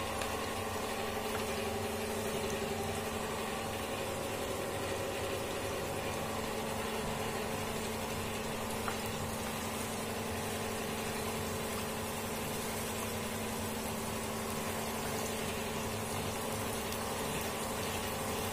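Oil sizzling and bubbling steadily around flour-battered snapper fillets deep-frying in a frying pan, over a constant low hum.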